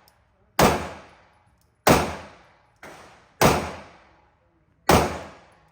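Pistol shots fired one at a time at a gun range: five shots about a second to a second and a half apart, each sharp crack followed by a short echoing decay. The third is quieter than the rest.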